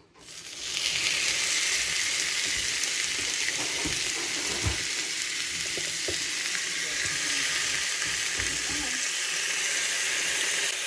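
Raw steak sizzling on the hot plates of an electric waffle maker, a steady frying hiss that starts as the meat goes down about half a second in, with a few soft knocks as it is handled.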